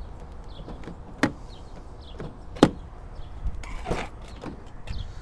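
A few separate sharp clicks and light knocks, about five of them with no regular rhythm, over faint steady background noise.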